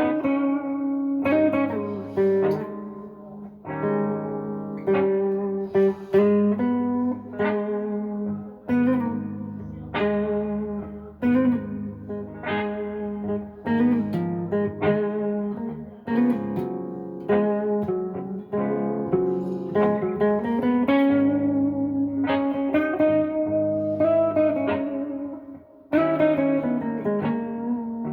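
Gibson SG Special electric guitar on its neck pickup, played through a Fender Blues Junior IV with overdrive, delay and reverb: slow blues lead lines of single picked notes with string bends over sustained low chords.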